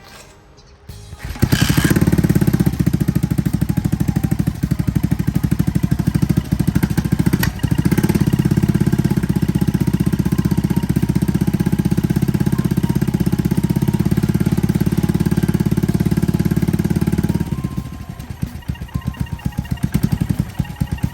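Yamaha SR400 single-cylinder four-stroke engine running with a rapid popping beat, the 'pupupupu' noise that comes from a faulty intake manifold. It comes in about a second in, runs steadily, then turns quieter and less even near the end.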